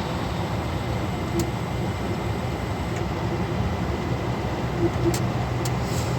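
Steady engine and road noise heard inside the cab of a moving truck, with a few faint short clicks.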